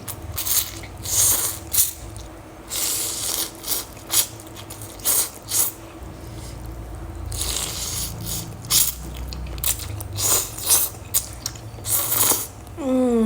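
Close-miked eating of spicy instant noodles: repeated slurps and wet chewing with light utensil clicks, then a short hum of approval near the end.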